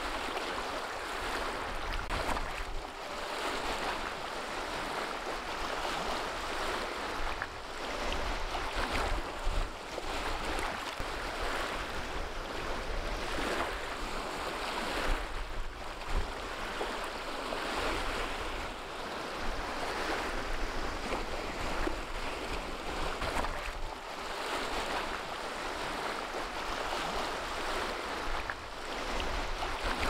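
Small choppy waves breaking and splashing over rocks and pebbles at the water's edge: a continuous wash that swells every second or two as each wave comes in. Underneath runs a low rumble of wind on the microphone.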